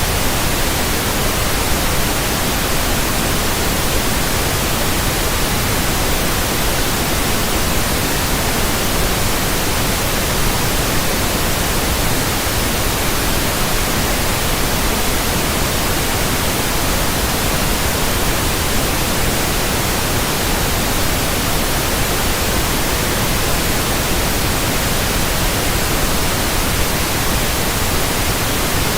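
Continuous static noise: a steady, even hiss across the whole range, unchanging in level.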